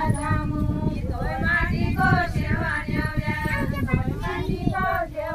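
A group of women singing a deuda folk song together in chorus, in repeated phrases, over a low rumble of crowd and outdoor noise.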